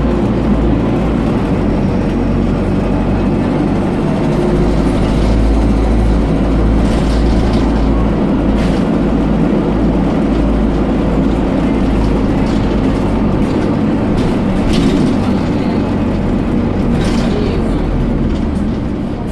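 Dennis Dart SLF single-deck bus heard from inside, its diesel engine running steadily under way with a deep drone. A few brief knocks or rattles come through.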